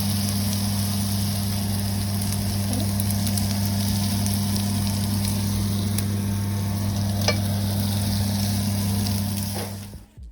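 Food sizzling in a hot pan, a steady hiss over a constant low electrical hum, with a few faint clicks; it stops suddenly near the end.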